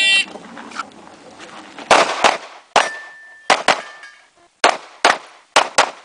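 Semi-automatic pistol fired in a practical shooting stage: about nine shots starting some two seconds in, mostly in quick pairs, each with a short echo. It opens on the last of the shot timer's electronic start beep.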